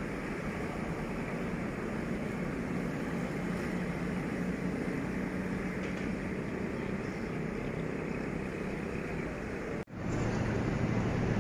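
Diesel-electric locomotive engine running with a steady low hum under a noisy rumble. About ten seconds in the sound cuts out for an instant and comes back louder, with a deeper hum that keeps growing.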